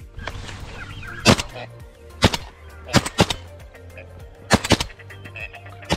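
Shotgun shots at ducks: about seven sharp reports, two of them in quick pairs, over steady background music.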